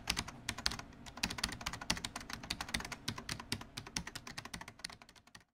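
Rapid computer-keyboard typing, about ten key clicks a second, thinning out and fading near the end.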